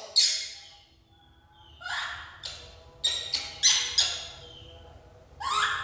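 Baby macaque crying: a series of about seven short, high-pitched screeching cries, each falling in pitch, with a pause of over a second after the first.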